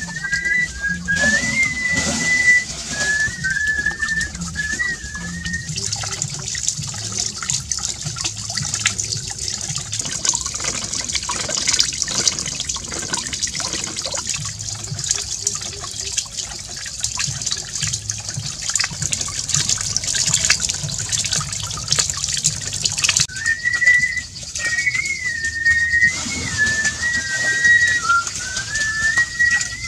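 Water pouring and splashing steadily over a small bamboo water wheel. A high, wavering whistled tune is heard for the first few seconds and again during the last several seconds.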